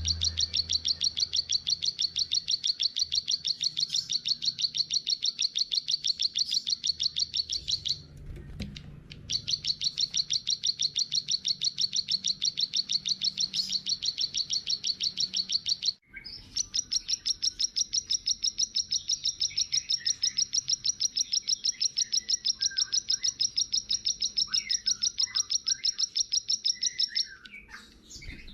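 A small songbird's high-pitched chirp repeated rapidly, about five times a second, in long even runs with two short breaks. Fainter, lower bird calls come in underneath during the last third.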